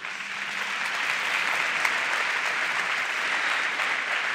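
Theatre audience applauding steadily after a line in a talk, the clapping starting suddenly.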